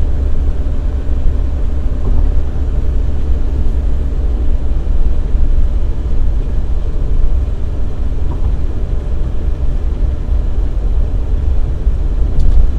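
Steady low rumble of a Maruti Alto car cruising at speed, heard from inside the cabin: engine, tyre and road noise with no distinct events.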